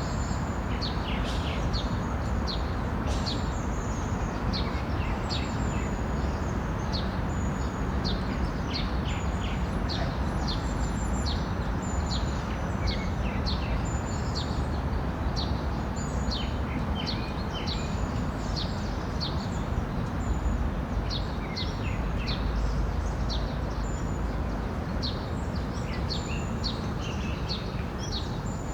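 Small songbirds chirping busily, a constant stream of short, quick descending chirps, over a steady low background rumble.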